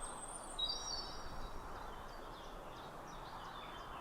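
Birds singing: high, thin whistled notes in the first second, then a string of short, fainter chirps, over a steady soft hiss of outdoor ambience.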